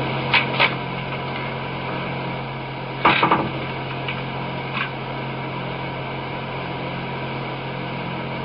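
Old recording's background: an even tape hiss with a steady low hum. A couple of brief sounds come near the start, and a louder short cluster of sound comes about three seconds in.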